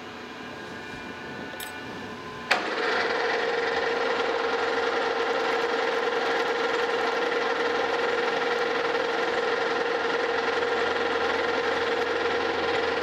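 Metal lathe: a steady mechanical hum while the spindle is stopped, then a sharp clack about two and a half seconds in as the spindle is engaged. The chuck then runs steadily with a constant whine.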